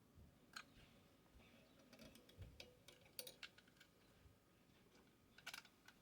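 Faint, irregular clicks and taps of small plastic parts of a heat gun being handled, with a cluster of clicks in the middle and another near the end.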